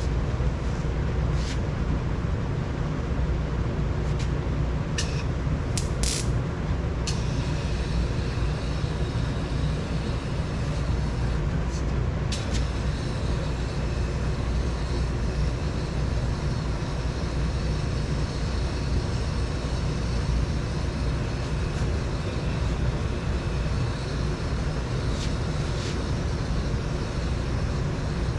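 A steady, low machine drone, with a few brief clicks and knocks about 1.5, 5 to 7 and 12 seconds in.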